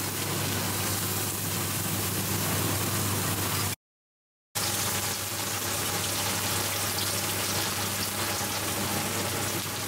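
Hot oil sizzling steadily around an egg-and-batter pancake frying in a pan, a hiss like rain. It is cut by a brief dead-silent gap about four seconds in.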